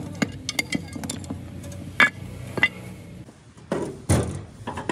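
Metal tools and parts clinking and knocking in a string of sharp clicks, with two louder ringing clinks about two seconds in and a heavier knock near the end.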